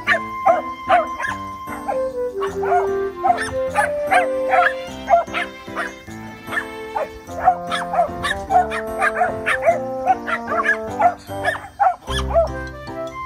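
Background music with a dog barking repeatedly over it, in short barks several a second.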